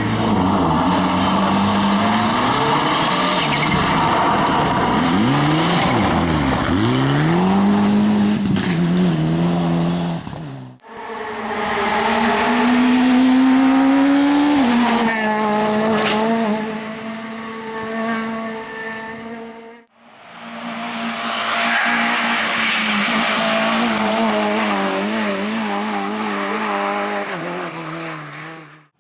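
Race car engines at full throttle, their pitch sweeping up and dropping repeatedly with revving and gear changes, with tyre noise. The sound cuts off abruptly twice and starts again on a different car.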